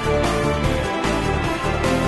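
Background soundtrack music: sustained notes over a heavy bass line, with occasional sharp accents.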